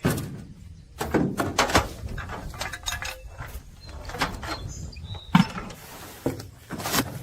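Irregular metal clicks, knocks and clatter as a galvanized fluke anchor and its snap latch are handled and rigged.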